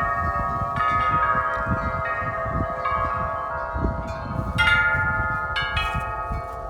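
Large metal tube wind chimes clanging in gusty wind: tubes are struck in irregular clusters and ring on between strikes, with a burst of strikes a little past the middle. Wind rumbles on the microphone underneath.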